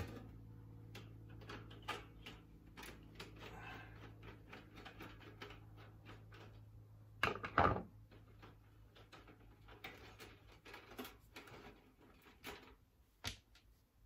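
Small clicks and rattles of hands and a screwdriver working on the bare sheet-metal housing of a toaster oven, pulling wire connectors off the heater and lamp terminals, with a louder clatter of knocks a little past halfway.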